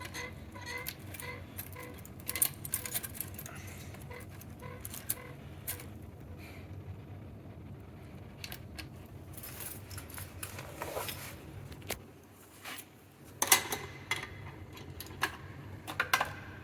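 Keys jangling and sharp metallic clicks from a fire alarm pull station being handled and keyed, loudest in a clatter about thirteen and a half seconds in, over a low steady hum.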